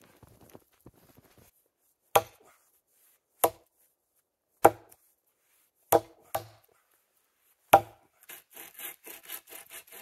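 Axe chopping hardwood firewood: six sharp blows spaced about a second apart, one of them a quick follow-up stroke. Near the end come fainter, quicker scraping sounds.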